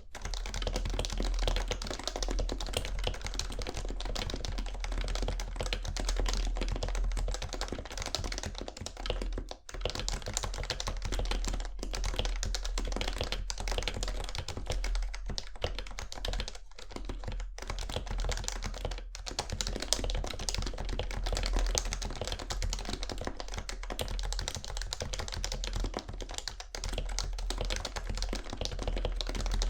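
Continuous fast typing on a PFU Happy Hacking Keyboard Professional 2 with 45 g Topre electro-capacitive switches, lubed rails and case foam, giving a dense run of soft keystroke thocks with a few brief pauses.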